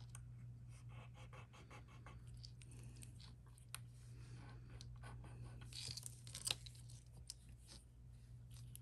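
Faint scratching and small clicks as pieces of jewelry are handled and scraped to mark-test the metal for sterling silver, with a couple of sharper ticks.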